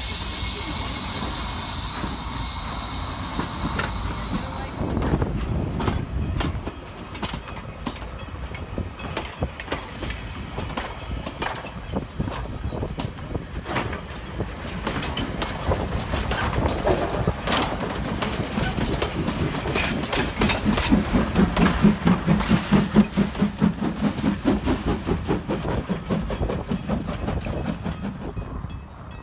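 NZR Ab class steam locomotive 699 hissing steam while standing, then its train rolling past with wheels clicking over the rail joints. A louder rhythmic beating from the moving train builds up in the second half.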